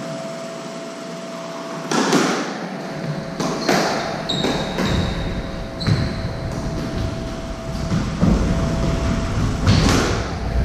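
Squash rally: the ball struck by rackets and cracking off the court walls, about five sharp echoing hits a few seconds apart. Brief high shoe squeaks and low footfall thuds on the wooden floor run between the hits.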